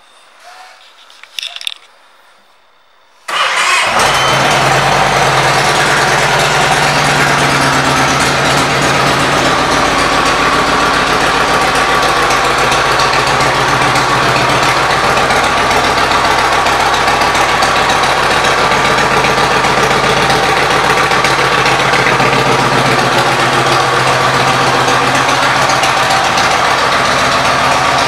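The 2006 Yamaha Stratoliner's air-cooled V-twin, breathing through aftermarket Cobra exhaust pipes, comes in abruptly about three seconds in and then idles steadily. Before it there are only a few faint clicks.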